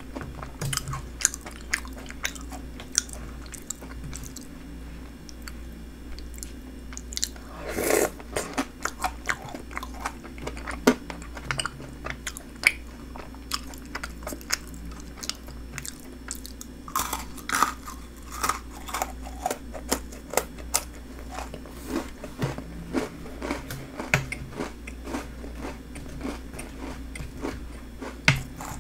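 Close-miked chewing and crunching of cookie- and snack-topped shaved ice in milk: a run of short crisp crunches and wet mouth sounds, with louder bouts of crunching about 8 seconds in and again around 17 seconds in.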